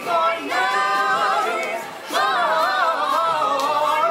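An a cappella vocal group of men and women singing in close harmony, with no instruments. They hold one sustained chord, break briefly about two seconds in, and come back with a louder held chord that wavers in pitch.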